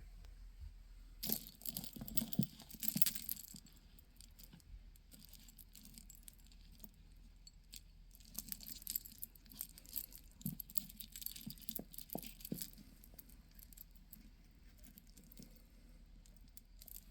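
Small beads clicking and rattling against one another as they are handled, in clusters of quick light clicks with quieter handling between. The busiest stretches come about a second in and again in the middle.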